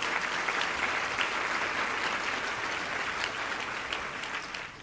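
Audience applauding: a steady patter of many hands clapping that fades away near the end.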